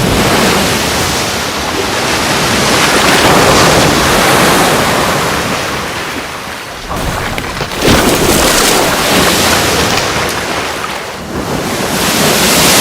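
Seawater rushing over an ice floe in a large wave made by a pod of killer whales swimming in unison. The rush swells and eases more than once, with a sudden splash about eight seconds in.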